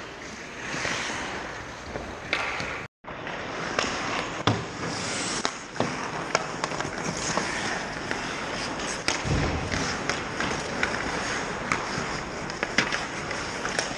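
Ice hockey play on a rink: skate blades scraping and carving the ice, with sharp clicks and knocks of sticks and pucks. The sound drops out to silence briefly about three seconds in, then carries on.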